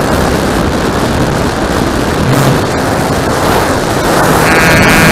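Radio-controlled model airplane's motor and propeller heard from a camera mounted on the plane, a loud steady rushing noise with wind on the microphone; a high whine comes in near the end as the plane climbs.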